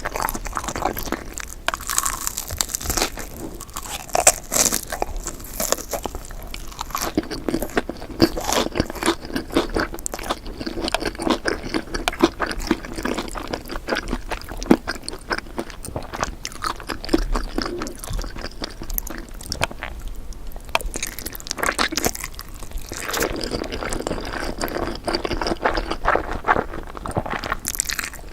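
Close-miked eating sounds: people chewing and biting spicy noodles, a dense run of irregular crunchy, wet mouth clicks.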